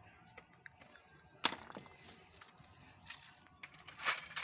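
Sharp clicks and light taps of small metal parts being handled, a louder click about a second and a half in, then a louder clatter near the end.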